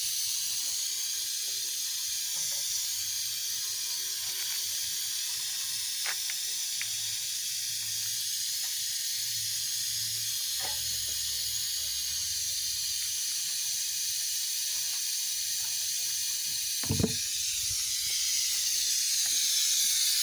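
Steady hiss of compressed air flowing through a pneumatic vacuum brake bleeder, drawing brake fluid and air out of the caliper's bleed nipple into the catch bottle. A single knock near the end.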